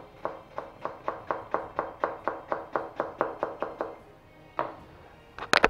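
Knife chopping vegetables on a plastic chopping board in a quick, even rhythm of about four cuts a second. The cuts stop after some four seconds, then come one more cut and a louder clatter of knocks near the end.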